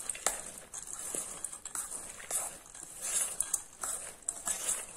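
A spoon stirring and tossing a salad of sprouted moong beans and grated carrot in a stainless steel bowl: repeated rustling, scraping strokes with light clicks of the spoon against the metal, a little faster than one stroke a second.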